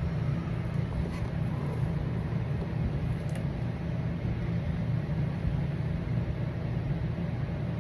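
Steady low mechanical hum of a running motor, with a couple of faint clicks.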